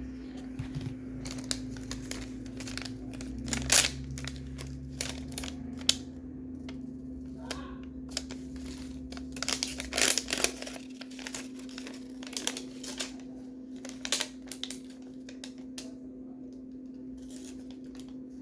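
Irregular clicks, scrapes and crinkles of hands handling small plastic toy pieces, fitting parts together, with a steady low hum underneath.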